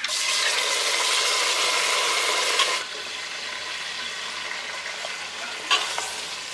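Raw mutton pieces dropped into hot mustard oil with onions in a pressure cooker, setting off a loud sizzle that falls to a quieter, steady frying hiss about three seconds in. A metal ladle stirs the meat and clinks against the pot near the end.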